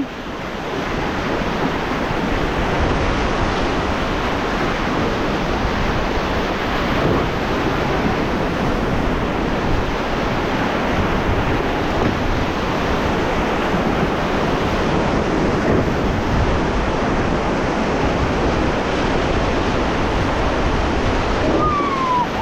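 Fast-flowing river water rushing steadily, with wind buffeting the microphone.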